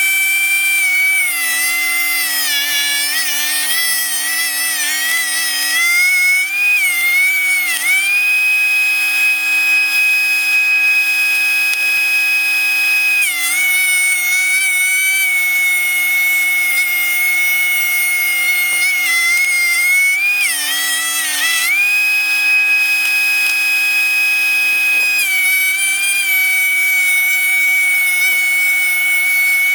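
DeWalt 13-inch benchtop thickness planer running with a loud high whine: its pitch sags and wavers while boards feed through under load, and rises back to a level tone when the cutterhead spins free between boards, about 8 seconds in and again about 22 seconds in.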